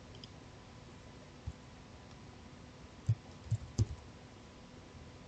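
Keystrokes on a computer keyboard: a faint click early, then a few quick, louder key clicks about three to four seconds in as a short name is typed.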